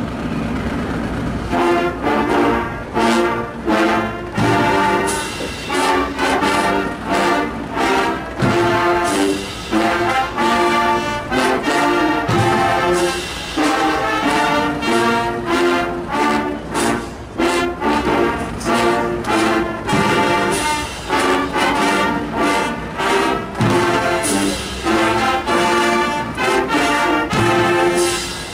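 Marching band playing loudly: trumpets, trombones, saxophones and sousaphones in short, rhythmic chords over marching snare and bass drums.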